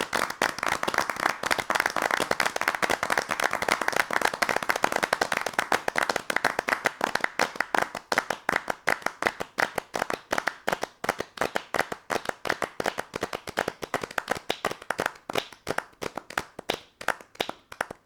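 A large crowd clapping. Dense applause thins out over the last ten seconds or so to a scattering of separate claps, which die away near the end.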